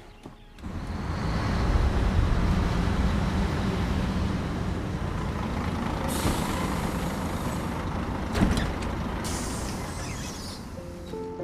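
Steady low rumble of a heavy road vehicle running, with two short bursts of high hissing in the middle and a sharp knock about eight seconds in.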